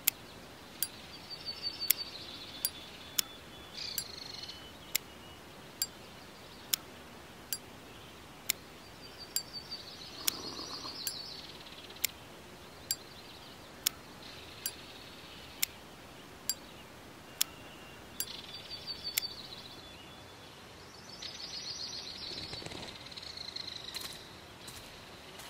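Watch ticking, one sharp tick a little under once a second, with birds chirping in the background and two brief swells of rustling noise.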